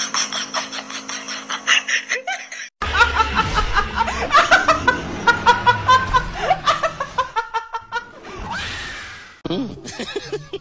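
A young woman laughing hard in quick, high bursts, starting about three seconds in after a run of rapid rhythmic pulses. Her laughter breaks off into a short rushing noise near the end.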